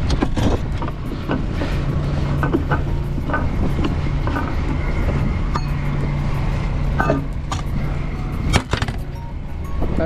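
An engine running steadily in the background under repeated scrapes, knocks and metal clinks as packed snow is dug out of a Caterpillar D7 dozer's air cleaner housing and its metal cover is handled.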